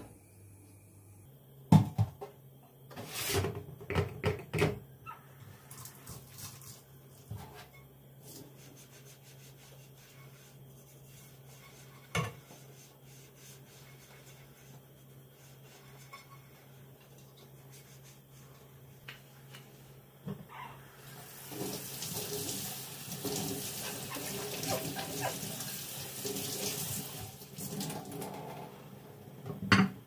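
A pot knocking and clattering against a stainless steel sink as it is handled, then a tap running water into the sink for about seven seconds in the second half.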